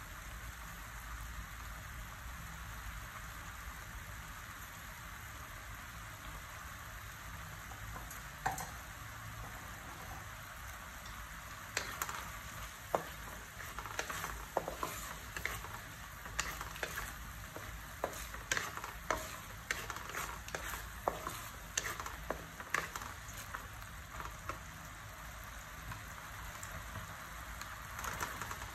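Meat and sauce sizzling and bubbling in a metal wok, a steady frying hiss. About halfway through, a wooden spatula starts stirring, with repeated scrapes and knocks against the pan.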